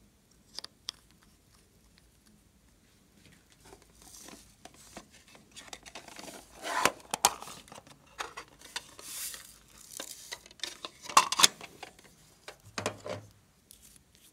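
Small plastic makeup containers handled close up: two sharp clicks about half a second in, then a plastic toy makeup case handled and rummaged, with irregular plastic clicks, rattles and scraping, loudest about seven and eleven seconds in.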